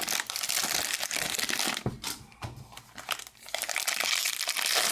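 Crinkling of foil trading-card pack wrappers and cards being handled, a dense crackle that eases off for a second or so midway.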